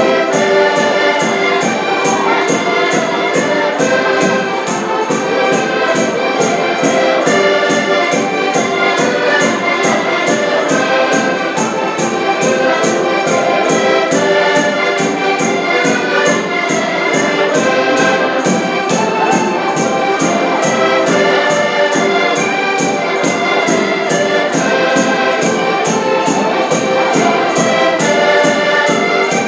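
An ensemble of accordions playing a lively Portuguese folk tune in chords, with a bass drum keeping a steady beat.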